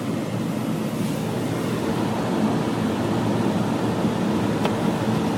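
Steady rumble and hiss of road and engine noise inside a moving vehicle's cabin.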